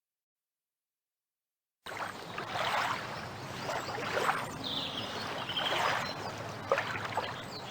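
Silence for nearly two seconds, then water sounds: trickling and soft splashing, with a faint high chirp near the middle.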